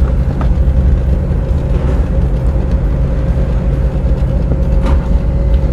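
Steady low rumble of a vehicle driving along a paved street, heard from on board, with a thin steady hum above it.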